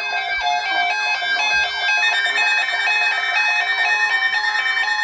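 Synthesized electronic music with a repeating, stepping beep-like melody.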